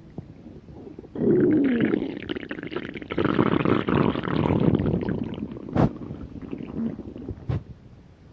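Hungry stomach growling. A faint gurgle comes first, then about a second in a loud squeaky growl that slides down in pitch, followed by a long bubbling rumble. Two short sharp gurgles come near the end.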